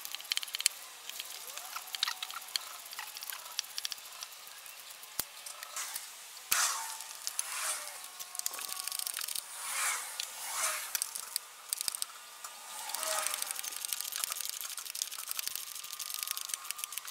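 Small metallic clicks and taps from hands and tools working on the turbocharger and its fittings, with a few short bursts of scraping and rubbing.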